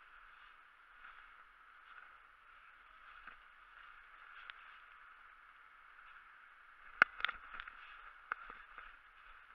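Slow footsteps crunching through dry fallen leaves over a steady hiss, with a sharp crack about seven seconds in followed by a quicker run of crunches and clicks.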